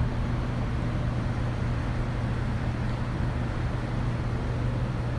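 Steady low machine hum with an even rushing noise over it, at a constant level.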